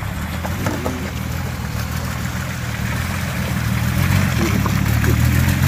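Nissan Patrol's engine running steadily under load as it crawls through a deep mud rut, growing louder as the truck comes closer.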